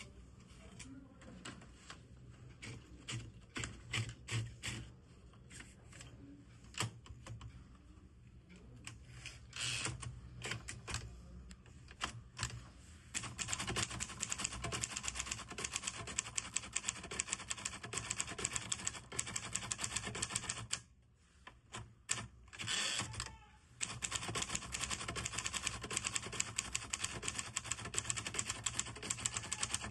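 Keys of a 1967 Hermes Baby portable manual typewriter striking the platen, scattered and irregular at first, then fast continuous typing with a brief pause about two-thirds of the way through.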